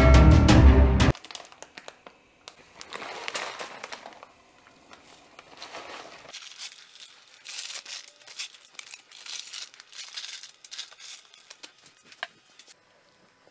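Intro music that cuts off about a second in, then a plastic Samyang 2x Spicy instant-noodle packet crinkling in irregular rustles and crackles as it is handled and opened.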